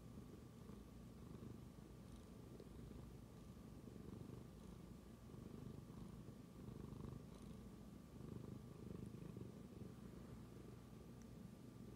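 Ginger tabby cat purring, a faint low rumble that swells and eases in slow waves.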